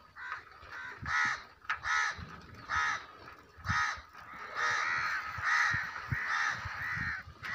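Harsh crow-like caws, repeated about once a second, then coming almost without a break through the second half.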